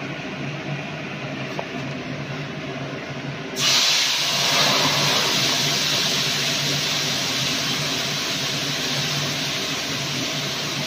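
Hot oil sizzling steadily in a karahi on a gas burner, with a tempering of whole cumin, a dried red chilli and a bay leaf frying in it. The sizzle starts suddenly about three and a half seconds in, after a low steady hum.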